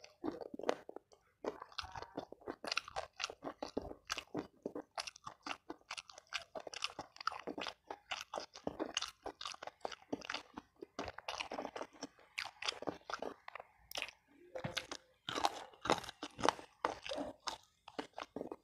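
Close-miked chewing and biting of chicken necks: wet mouth sounds with many sharp, irregular crackles.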